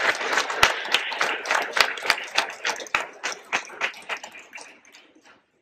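Audience applauding, the clapping thinning to a few scattered claps and dying away about five seconds in.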